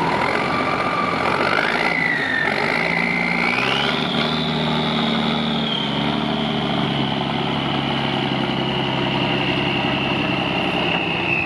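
The 7.8-litre White multifuel turbo engine of a 1961 M35A1 army cargo truck is run up in two steps as the truck pulls away, about two and four seconds in, then holds a steady pitch. A high turbocharger whistle rises and falls with the engine.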